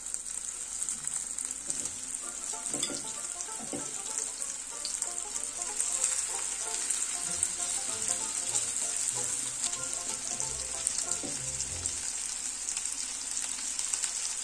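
Chopped chicken cutlets sizzling steadily in hot oil in a cast-iron skillet, with a few light clicks of a utensil against the pan as more mixture is spooned in.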